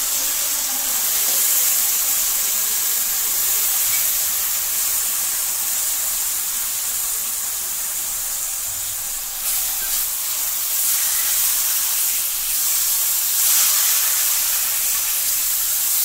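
Raw prawns just added to hot masala sizzling in the pot: a steady high hiss that swells briefly about ten seconds in and again near the end.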